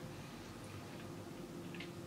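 Quiet room tone: a faint steady hum with a few soft ticks about three-quarters of the way through.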